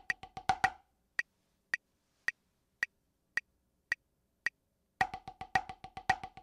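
Drumsticks playing rapid accented 16th notes on a drum practice pad over a metronome click at 110 BPM. Under a second in the sticks stop, leaving the metronome clicking alone, just under twice a second, for about four seconds; then the accented 16th notes start again.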